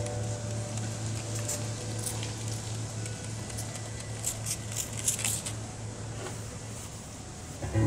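Hand trigger spray bottle squirting cleaner in short hissing spurts, a couple early on and a quick cluster about four to five seconds in, over a faint steady low drone.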